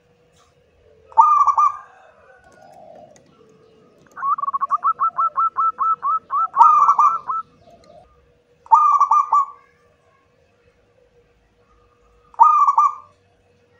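Zebra dove (perkutut) cooing: short ringing phrases about a second in, around nine seconds and near the end, and from about four seconds a fast run of notes, about seven a second, that ends in a louder phrase.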